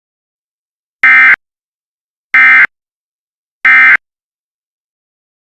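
Three short, loud, buzzy data bursts, evenly spaced a little over a second apart: the Emergency Alert System's end-of-message code, the digital SAME tones that close an alert broadcast.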